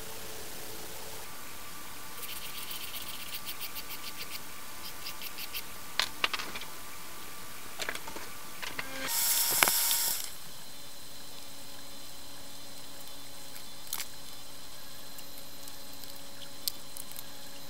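Steady hiss with a few small clicks and taps of hard plastic parts being handled on a workbench. Fast faint ticking comes early on, and one brief rushing noise a little past halfway is the loudest moment.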